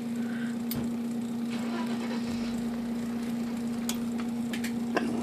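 IBM Selectric III typewriter's electric motor running with a steady hum, with a few light clicks.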